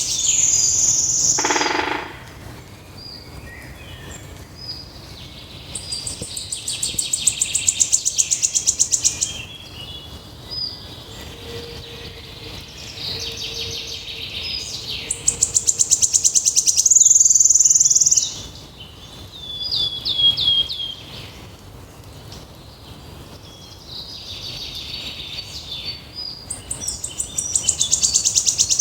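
A songbird singing a loud, fast trilled song of rapid high notes. Each song lasts two to three seconds and comes about every eight or nine seconds, four times in all. Softer chirps and short whistled notes fall between the songs.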